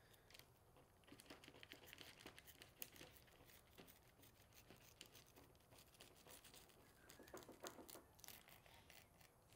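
Faint crinkling and scratching from a fillet knife slicing along the spine of a tuna on a paper-covered table, with the paper rustling under the fish, in many small irregular clicks.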